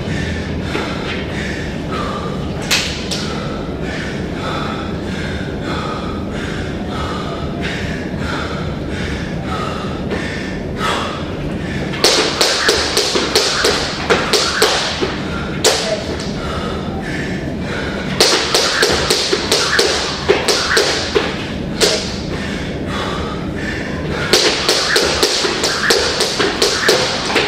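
Irregular taps and thuds over a steady background noise, coming in quick clusters of several knocks a second from about twelve seconds in.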